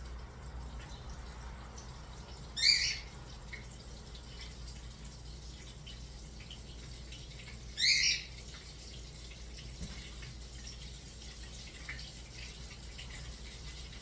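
Faint steady sizzle of chicken nuggets frying in hot oil, with two short high chirps about five seconds apart.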